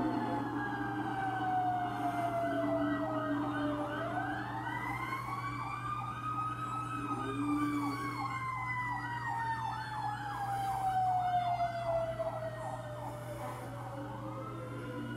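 Fire engine's Federal Q mechanical siren winding down, winding back up about four seconds in, then slowly running down again, with a second siren yelping rapidly over it, about three sweeps a second, through the middle. Played back from a computer and re-recorded, so it sounds thin.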